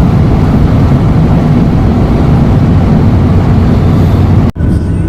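Loud, steady low rumble of a car driving at speed: road and wind noise on the move. It drops out for an instant about four and a half seconds in, then carries on.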